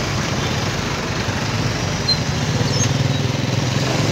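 Motorcycle engine running steadily at low speed, heard from the rider's seat, over the noise of street traffic.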